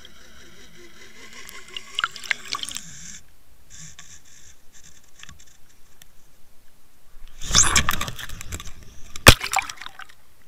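Underwater audio from a Water Wolf HD fishing camera being pulled through the water: a rushing hiss of water over the housing with a few ticks for the first three seconds. Later comes a loud scraping, clattering burst, followed about a second later by one sharp knock, the loudest sound.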